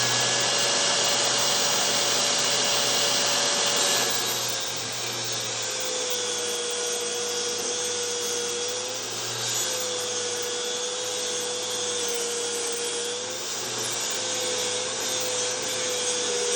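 Festool electric sander running on wood: a steady motor whine over a broad sanding hiss, the pitch wavering slightly as the sander is worked over the surface. The level drops a little about four seconds in.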